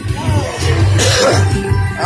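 Slot machine bonus-round music with a steady bass beat and a gliding melody, with a bright splash of sound about a second in as the bonus win is tallied.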